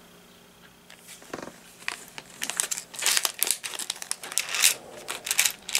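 Small shiny plastic packet crinkling as it is handled, a run of irregular rustles that starts about a second in.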